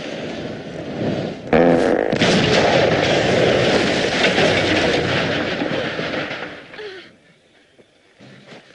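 A big methane gas explosion as a film sound effect. A sudden blast comes about a second and a half in, followed by several seconds of fire and debris noise that fades out about seven seconds in.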